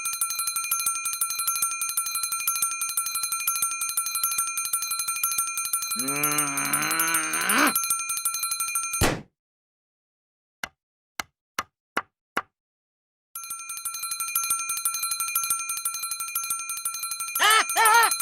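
Mechanical alarm clock bell ringing in a rapid, continuous clatter that cuts off suddenly about nine seconds in. Five sharp knocks follow, then the ringing starts up again about thirteen seconds in.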